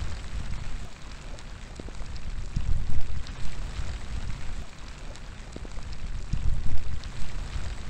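Steady outdoor rain with individual drops striking close by, and wind swelling low twice, about three and seven seconds in.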